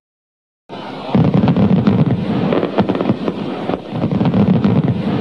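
Fireworks crackling and popping in a dense, continuous stream. The sound drops out completely for a moment at the start and resumes under a second in.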